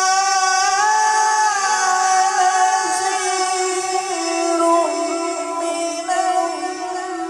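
A man reciting the Quran in melodic tilawat style into a microphone. He draws out long held notes that wind slowly up and down in pitch.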